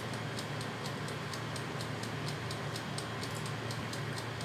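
German Pool halogen air fryer running: its fan gives a steady whir while its clockwork timer dial ticks rapidly and evenly.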